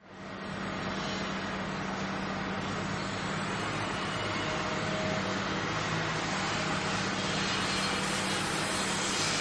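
A steady engine-like mechanical drone with a hiss and a low hum, fading in quickly at the start and swelling slightly toward the end.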